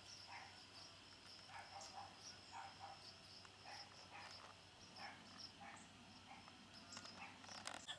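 Faint outdoor insect chorus of crickets chirping steadily in a high pitch, with faint short sounds repeating every half second or so underneath.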